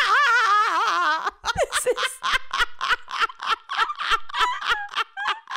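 Two women laughing hard. First comes a high, wavering squeal of laughter, then quick breathy laughs, several a second.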